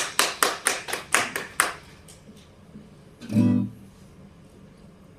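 Hands clapping in a steady rhythm, about four claps a second, stopping under two seconds in; about three seconds in an acoustic guitar sounds one short strummed chord, then only faint room noise.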